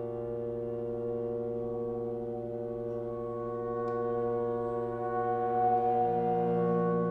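Mixed chamber ensemble of winds, brass and strings holding a long, drone-like chord of many sustained steady tones. A new low note enters about six seconds in as the sound swells slightly.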